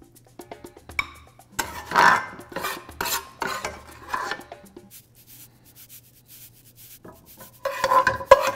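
A spoon stirring thick creamed spinach in a stainless steel pot, scraping the sides and bottom in a run of strokes for about three seconds, then a lull. Near the end the spoon knocks against the pot, which rings.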